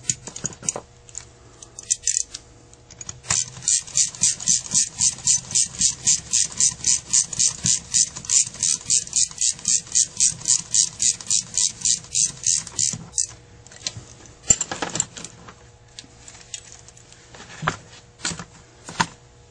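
A ratchet clicking evenly, about four clicks a second for roughly ten seconds, as a screw on a Carter AFB carburetor is turned. A few separate knocks of tool handling follow near the end.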